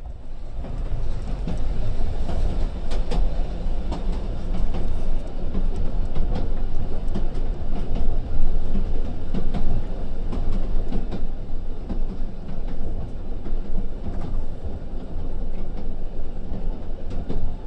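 A train running on rails: a steady low rumble with frequent irregular clicks from the wheels on the track.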